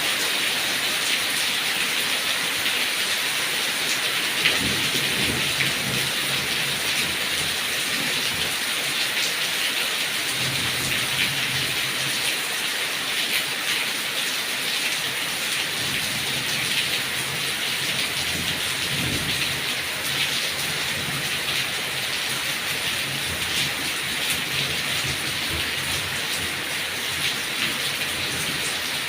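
Heavy rain pouring steadily onto papaya leaves: a dense hiss full of fine drop patter. A low rumble comes and goes several times.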